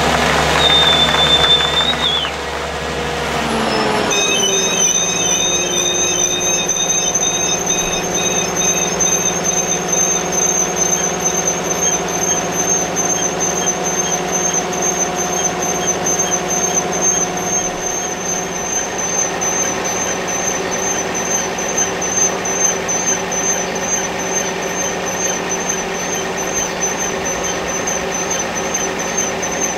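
Machinery running with a low engine rumble that drops away about four seconds in. After that a steady high-pitched whine holds over a low steady hum.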